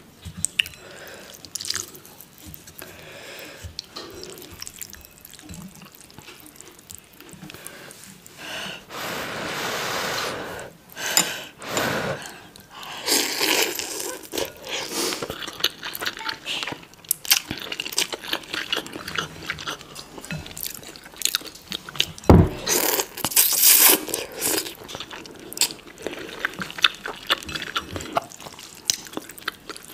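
Close-miked eating of instant ramen: loud wet slurps of noodles and broth, several times, with chewing and chopsticks clicking against a glass bowl in between.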